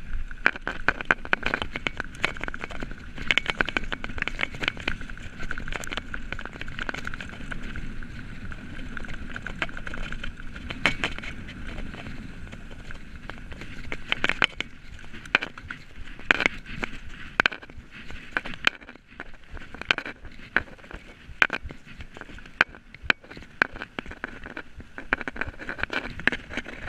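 Mountain bike riding down a rough dirt singletrack: tyre noise on dirt with frequent sharp rattles and knocks from the bike over bumps.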